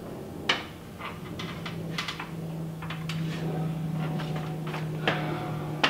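Ratchet strap being handled just after tightening: a sharp click about half a second in, then several lighter clicks and knocks. A steady low hum sets in about a second and a half in and continues.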